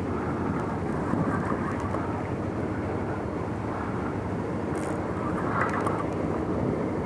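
A steady, low engine rumble, with a few faint ticks about five seconds in.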